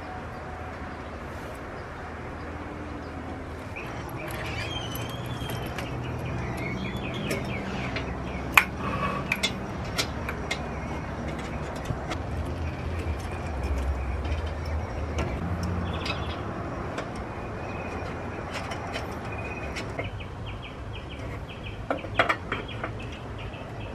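A few sharp metallic clicks and clinks of hand tools on engine parts, over a steady low hum, with birds chirping in the background.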